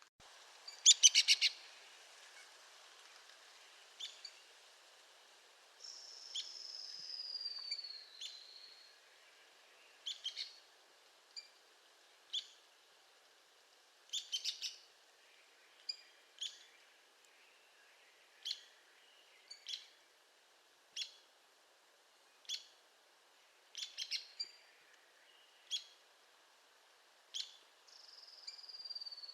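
Arizona woodpecker calling: short, sharp high notes repeated every one to two seconds, with a quick loud burst of notes about a second in. A longer call falls in pitch at about six seconds, and again near the end.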